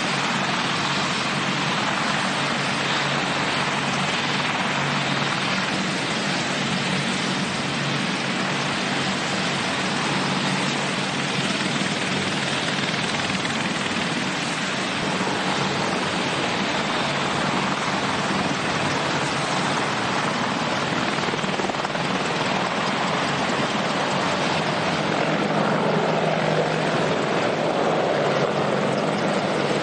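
AH-64D Apache attack helicopters running, with a steady, continuous rotor and engine noise from their twin turboshaft engines and main rotors. The noise grows a little louder near the end.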